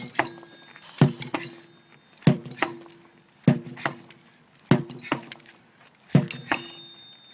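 Sledgehammer blows on a heavy rubber tire, a strike about every second and a quarter, five in all, each followed by a lighter knock and a short ring.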